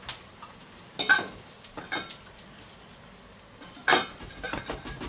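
Gloved hands taking sautéed mushrooms from a metal bowl and laying them on a loaded baguette: brief rustling and scraping sounds, the two loudest about a second in and near four seconds in.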